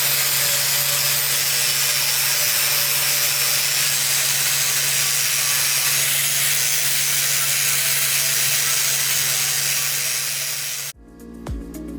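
A power abrasive tool running steadily as it grinds down weld seams on a steel bumper, with a constant low motor hum under a rough, hissing scrape. It cuts off abruptly about eleven seconds in, and music starts.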